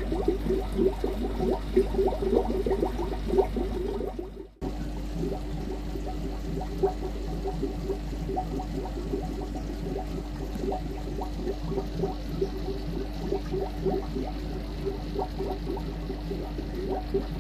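Aquarium water bubbling and gurgling in dense, irregular little pops over a steady low hum. The sound breaks off for a moment about four and a half seconds in, then carries on with a steady tone added.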